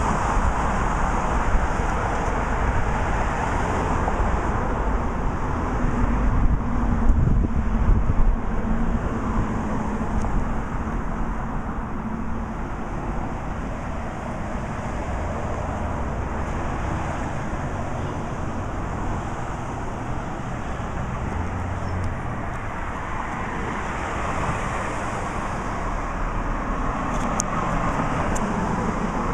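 Street traffic: cars passing on the road in a steady wash of engine and tyre noise. A louder pass comes about six to eight seconds in, and another car goes by near the end.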